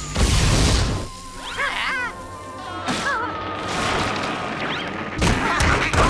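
Cartoon action sound effects over music: a loud crash at the start and another about five seconds in, with wavering, warbling tones in between.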